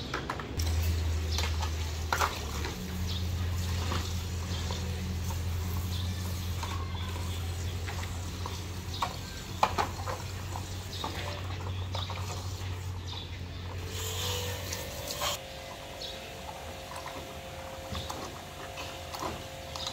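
Water splashing in a plastic basin as plastic toy trucks are handled in it, with irregular clacks and knocks of hard plastic and water from a garden hose running in. A steady low hum sits underneath until about three quarters of the way through.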